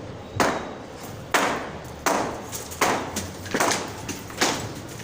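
Hammer blows breaking something up: about six sharp strikes a little under a second apart, each ringing briefly after the hit.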